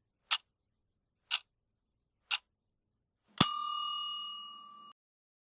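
A timer ticking once a second, three ticks, then a bell strikes once and rings out, marking the end of the 30 seconds. The ringing cuts off suddenly after about a second and a half.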